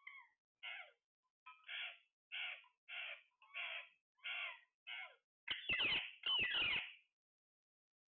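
Alexandrine parakeets calling: a run of short squawks repeating about every two-thirds of a second, then two longer, louder screeches about five and a half seconds in.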